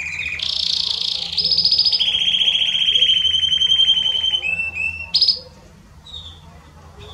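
Domestic Belgian canary singing a run of rapid rolling trills, each at a different pitch, with a long fast trill in the middle. The song ends about five seconds in, and a few faint chirps follow.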